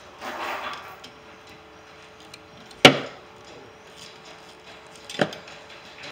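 Two sharp knocks, the first just under three seconds in and the louder, the second about two and a half seconds later, after a brief rustle of handling at the start.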